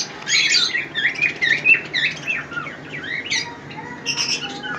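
Many caged pet birds chirping together, a busy run of short, quick calls overlapping one another.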